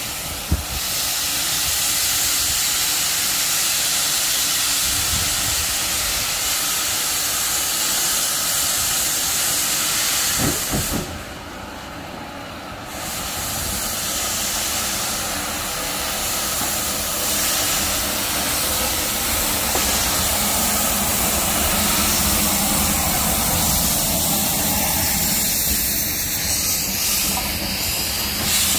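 Steam locomotives hissing loudly as they pull away, with steam blowing from the open cylinder drain cocks. The hiss thins briefly about eleven seconds in, then comes back just as strong.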